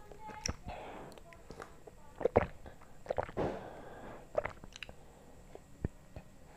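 A person drinking a cold drink from a glass of ice: gulps and swallows, with short sharp clicks. The loudest gulps come a little past two seconds in and again around three seconds.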